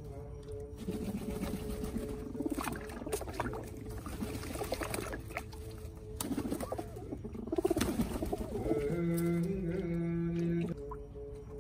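Rock pigeons splashing and flapping their wings while bathing in a stone water basin, in bursts about a second in and again around six to eight seconds. Behind them a Buddhist chant holds a steady monotone throughout and swells to a loud held note near the end.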